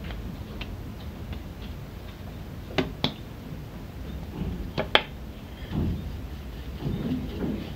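Hands working a ball of dough on a floured countertop, with two pairs of sharp knocks on the counter about three and five seconds in. Near the end a wooden rolling pin rolls over the dough in soft, low strokes.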